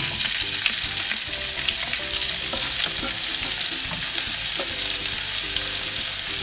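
Sliced onions sizzling in hot coconut oil and ghee with whole spices, being stirred in the pan, with small clicks of the spoon against the pan.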